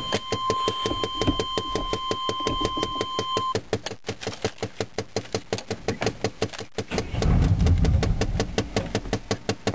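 Chevrolet 305 V8 turning over on the starter in rapid even pulses without catching, with a steady electronic warning tone over it for the first few seconds. The cranking grows louder and deeper about seven seconds in.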